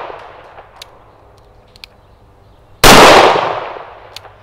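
Smith & Wesson Governor revolver firing a 2½-inch .410 shotshell loaded with four pellets of 000 buckshot. One sharp report comes a little under three seconds in and rings out over about a second. The fading echo of the previous shot is heard at the start.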